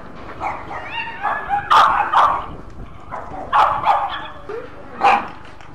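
Dog barking repeatedly, in three clusters of sharp barks about two, three and a half and five seconds in, with quieter calls between.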